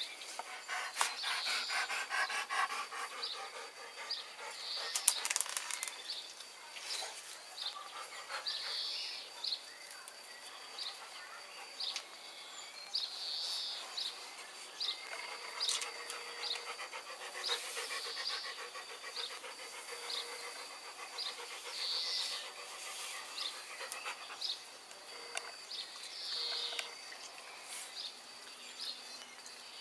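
Dog panting in short, repeated breaths, over a faint steady high whine.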